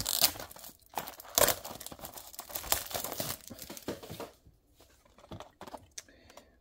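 Clear plastic shrink-wrap being torn and peeled off a small cardboard box, crackling and crinkling for about four seconds, then only a few faint handling clicks near the end.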